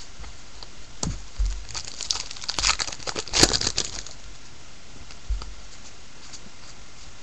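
Baseball card pack wrapper crinkling and crackling in the hands, in a dense cluster of rustles from about one and a half to four seconds in, with a few light clicks and soft thumps around it.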